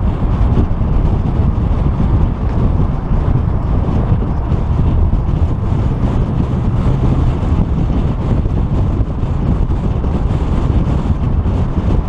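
Wind buffeting on a hood-mounted camera's microphone as a 2014 Ford Mustang GT drives at a steady speed, over the low, steady running of its 5.0 V8 and road noise.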